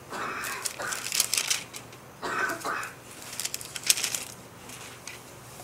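Thin Bible pages being leafed through and turned, crisp paper rustling in about three bursts.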